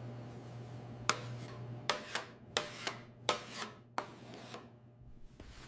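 A series of about ten sharp, irregularly spaced taps and knocks, like utensils or tools handled on a hard surface, over a low steady hum that stops near the end.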